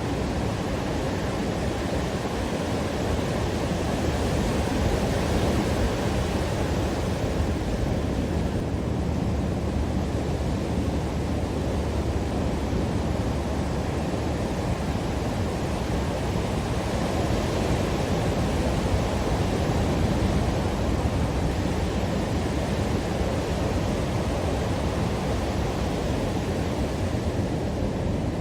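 Steady rushing of ocean surf on the beach, mixed with wind on the microphone, swelling slightly now and then.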